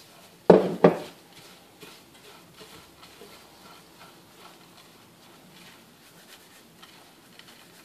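Gloved hands tossing and rubbing steamed angel-hair vermicelli in a clay bowl, a faint soft rustle, as salted water is worked into the noodles by hand between steamings. About half a second in come two loud knocks a third of a second apart.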